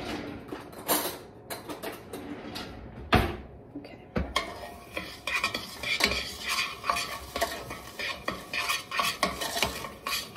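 Spoon stirring sugar, corn syrup and water in a stainless steel pot, scraping and clinking against the pot's bottom and sides, with one sharp knock about three seconds in. The sugar is being stirred in so it is all wetted by the water before heating for caramel.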